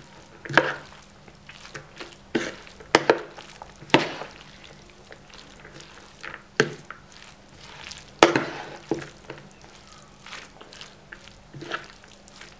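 Metal spoon stirring and tossing shredded carrot in a plastic mixing bowl: a soft moist rustle broken by about a dozen irregular sharp knocks of the spoon against the bowl, the loudest about four and eight seconds in.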